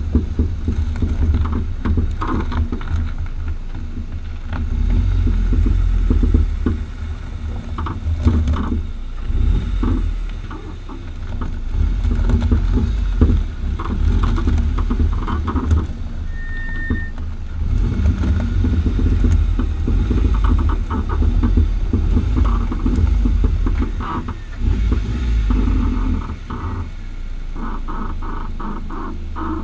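Front right Bilstein PSS9 coilover with H&R springs on a Renault Megane III squeaking and popping in short runs of rapid clicks, over the car's steady low rumble. The noise keeps coming back after two repairs, and its cause is not known.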